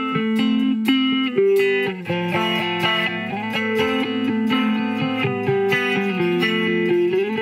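Electric guitar, a Fender Jazzmaster, played through an Old Blood Noise Endeavors Reflector chorus pedal on its mirror setting: a steady run of picked notes with pitch vibrato, the pedal's filter knob turned to sweep the tone.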